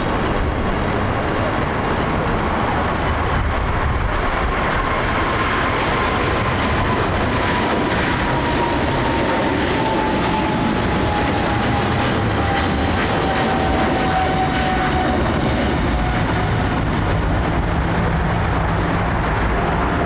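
Boeing 777-300ER's two GE90-115B turbofans at takeoff thrust through the takeoff roll and climb-out: a loud, steady jet noise with a fan whine that slowly drops in pitch. The hiss at the top fades after about seven seconds as the airliner climbs away.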